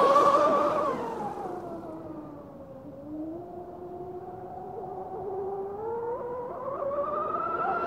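Radio-controlled speedboat's motor whining at full speed across the water, its pitch and loudness falling over the first three seconds as it heads away, then rising steadily as it runs back in.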